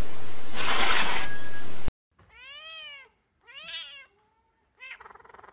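A loud, steady hiss of noise, harsher for about half a second, cuts off suddenly near two seconds in. Then a white cat meows twice, each meow rising and falling in pitch, and makes a third, rougher call near the end.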